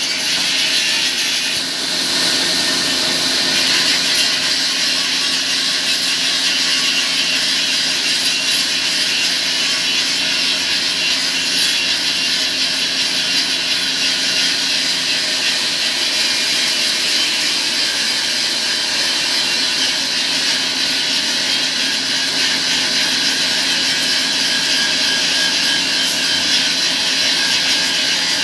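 Sawmill saw running and cutting wood: a steady, unbroken noise.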